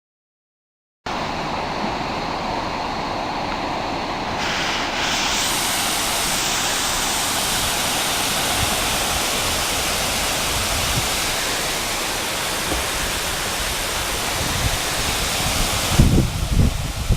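Waterfall rushing steadily, a dense even hiss that starts after about a second of silence and grows brighter about four seconds in. Near the end, loud low thumps hit the microphone.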